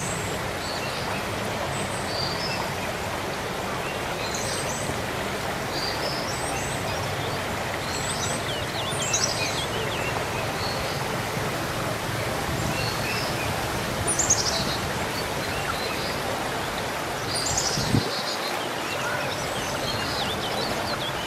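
Steady outdoor background noise with small birds chirping now and then, including a few quick high twittering calls that slide downward.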